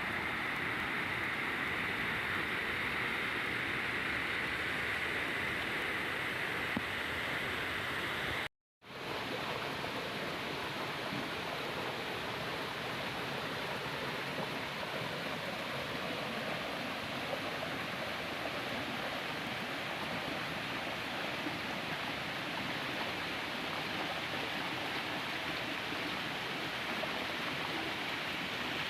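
Waterfall rushing in a steady, even hiss of falling water. The sound cuts out for a moment about nine seconds in, then carries on as before.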